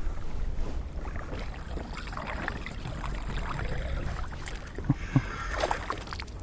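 Splashing of a hooked pike as it is reeled across the water toward the boat, with a louder splash just before the end and two soft knocks shortly before it. A low wind rumble on the microphone lies under it all.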